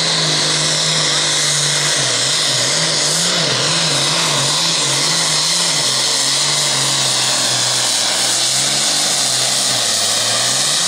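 Super Farm pulling tractor's turbocharged diesel engine at full throttle, pulling the sled down the track. Its pitch drops about two seconds in and wavers for a few seconds, then runs lower, and the engine backs off at the very end.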